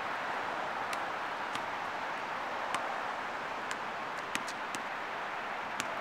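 Steady distant city traffic noise, with a few faint, short, sharp ticks scattered through it.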